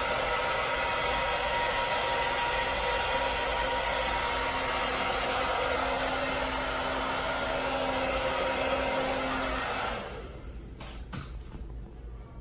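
Handheld hair dryer blowing steadily, switched off about ten seconds in, followed by a couple of light clicks.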